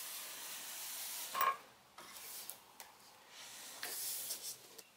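A metal bike rack being slid out of its cardboard box: cardboard scraping and rubbing against the rack, in bursts, with a short, louder scrape about one and a half seconds in.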